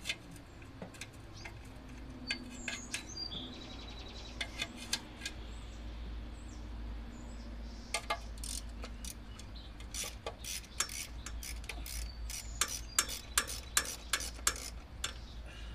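Hand ratchet and socket working bolts loose on a Chevy V8 engine: scattered metal clinks at first, then quick runs of ratchet clicks through the second half.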